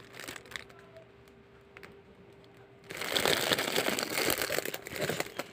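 Clear plastic packaging crinkling as it is handled. It starts about three seconds in, after a quiet stretch with a faint steady hum, and lasts about two seconds.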